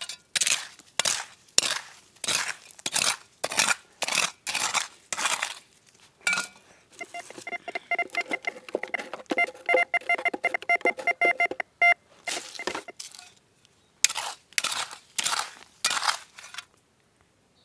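A digging tool scraping and chopping into stony soil, about two strokes a second. In the middle a metal detector sounds a steady pulsing tone over the target for about five seconds, then the digging resumes.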